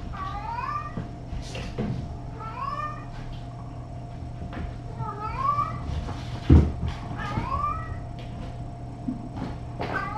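A cat meowing over and over, about five short high calls, each rising in pitch, roughly every two seconds. A single low thump about six and a half seconds in, over a steady electrical hum.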